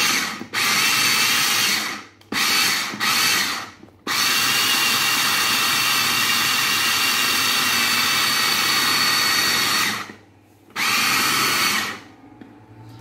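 Electric mini chopper's motor whirring in pulses as it grinds sardines with garlic and coriander: a few short bursts, then one long run of about six seconds, a short pause and a last burst of about a second, kept brief so the fish stays coarse rather than a paste.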